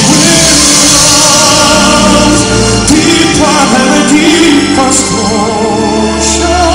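Live music: sung notes with vibrato over full instrumental accompaniment.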